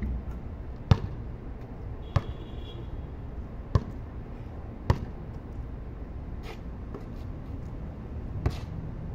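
Basketball bouncing on a concrete court: six single, sharp bounces spaced a second or so apart, the first the loudest.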